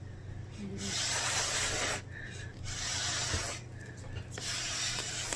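Breath blown hard through a drinking straw in three puffs of about a second each, with short pauses for air between them: straw blow painting, pushing runny watercolour paint across paper into tree branches.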